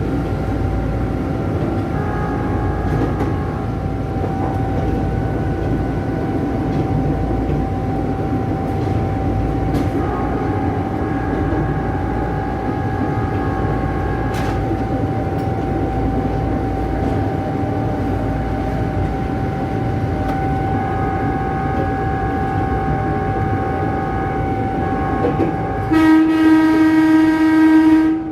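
Ex-Tokyu 8500-series electric commuter train running, heard from the driver's cab: a steady rumble of wheels on track with a steady whine over it. Near the end the train's electric horn sounds loudly for about two seconds.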